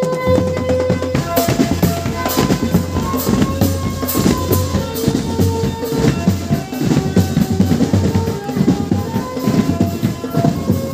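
Marching drum band playing a busy, fast beat on bass drums and snare drums, with held melody notes over the drumming.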